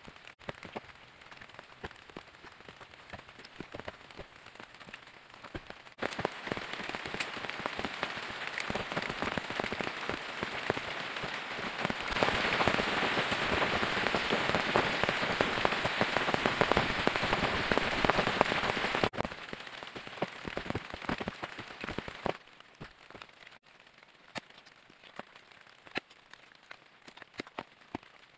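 Steady rain, a dense patter of drops. It gets abruptly louder about six seconds in and again about twelve seconds in, then drops back about nineteen seconds in and again about twenty-two seconds in.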